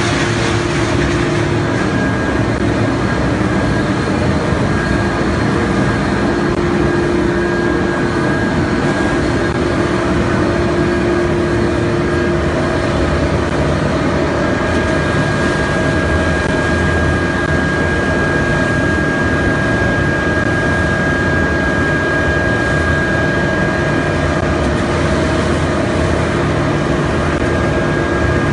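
GreenMax A-C300 polystyrene foam densifier running and crushing loose styrofoam: a loud, steady machine noise with a constant whine held over it.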